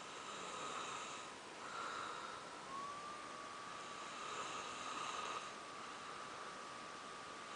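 Soft snoring: slow, hissy breaths, about three in a row, with a thin steady whistling tone underneath that shifts up a little about three seconds in.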